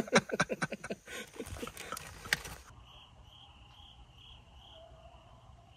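A man laughing briefly, then night insects chirping in a steady rhythm, about two chirps a second.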